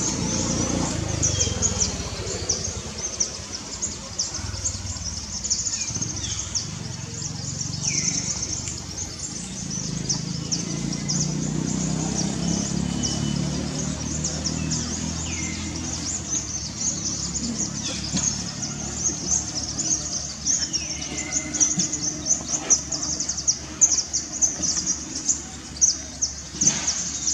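Outdoor ambience dominated by a steady, high, pulsing insect chorus. Short falling chirps come every few seconds over a low murmur that swells in the middle.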